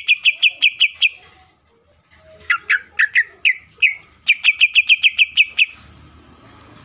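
Male green leafbird (cucak ijo) calling: a fast run of sharp, piercing notes at about seven a second, then a few slower notes sliding downward, then a second fast run that stops shortly before the end.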